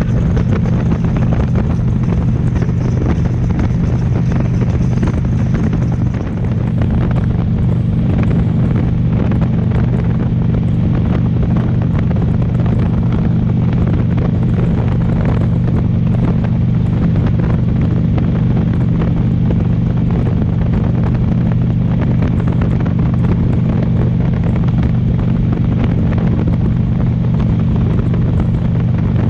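Harley-Davidson V-twin motorcycle engine running steadily at cruising speed, with wind rushing over the microphone.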